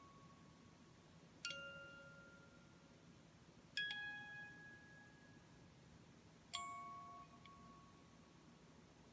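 Ceramic Christmas-tree wind-up music box playing a slow tune, its comb plucking single notes a second or more apart, each ringing out and fading.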